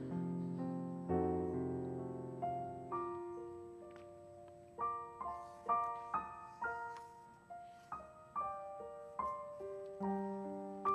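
Soft, slow piano music: held chords for the first few seconds, then a gentle melody of single notes, each struck and left to fade.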